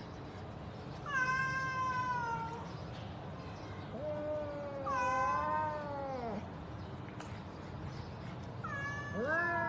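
Domestic cat meowing: three long, drawn-out meows, each lasting a second or two. The second slides down in pitch at its end, and the third begins near the end.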